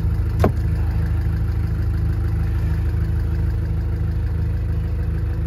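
Narrowboat engine idling steadily with a low, even throb, and a single sharp knock about half a second in.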